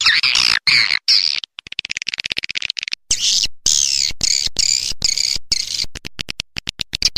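Swiftlet calling-sound track: dense, high twittering and chirping with a fast buzzing trill about a second and a half in, chopped by short silent gaps. It is a lure call played to draw swiftlets into a nesting house.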